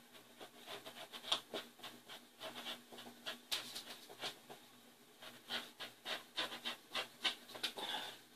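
Rotary cutter pushed along a ruler through several stacked layers of fabric on a cutting mat, in many short, irregular strokes, with a longer stroke near the end. The blade is struggling to get through all the layers at once.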